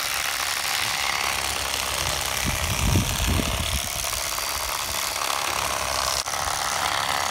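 Wind on the microphone: a steady rushing noise, with a few low buffeting thumps about three seconds in.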